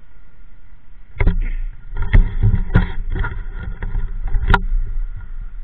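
Rumble of a motorbike ride, with wind on the microphone, growing louder about a second in, and broken by about five sharp knocks.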